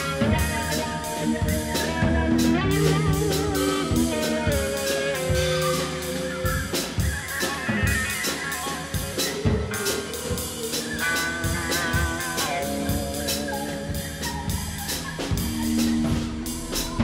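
Instrumental electro-jazz band playing: electric guitar with effects over a busy drum kit, with bass and modular synths. The drums hit several times a second under a shifting melodic line.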